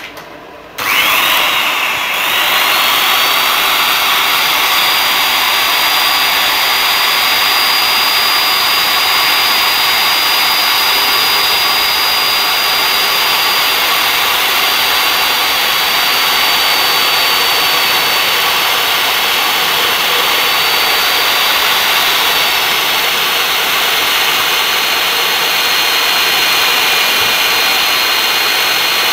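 Electric drill in a homemade drill stand starting up about a second in, then running steadily with a high whine while its bit drills into a steel bar. The whine drops a little in pitch about two-thirds of the way through.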